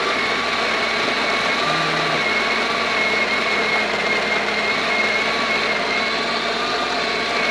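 Built-in conical burr grinder of a Breville Barista Express running steadily into the portafilter, with a faint wavering whine. It is grinding continuously in manual mode, switched on by one press of the newly replaced grinder microswitch.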